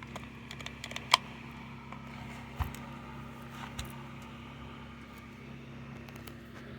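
Scattered light clicks and knocks of a Stihl MS 250 chainsaw's parts being handled, with one sharper click about a second in, over a steady low hum.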